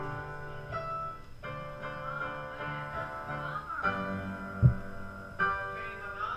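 Upright piano being played: a run of sustained chords that change every second or so. A single sharp low thump about two-thirds of the way through is the loudest sound.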